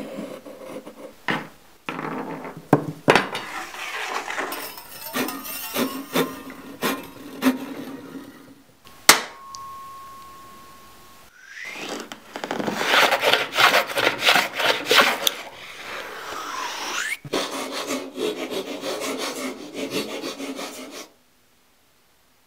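Hand-tool work on a western red cedar strip: scratchy rubbing and rasping strokes, then one sharp click about nine seconds in followed by a steady ringing tone for about two seconds. After that come runs of quick repeated hand-plane strokes shaving the strip, which stop shortly before the end.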